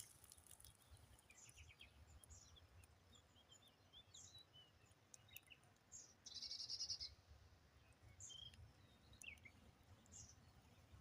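Faint birdsong: scattered short high chirps, with a brief rapid buzzy trill about six seconds in, over a low steady rumble.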